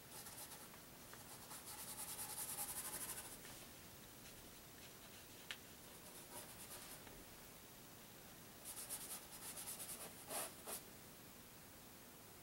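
Paintbrush scrubbing thin oil paint onto canvas in quick back-and-forth strokes, faint: one run of strokes about two seconds in and another about nine seconds in, with a few light taps of the brush.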